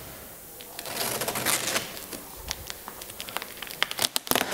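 Cardboard carton being cut open with a knife: the blade rasps along the packing tape and cardboard, with crackling and rustling, and a few sharp clicks near the end.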